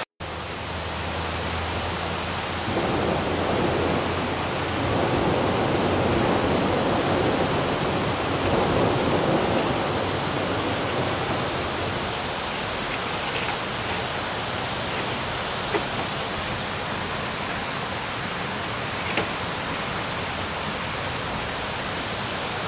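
Steady rush of river water, with a few faint clicks.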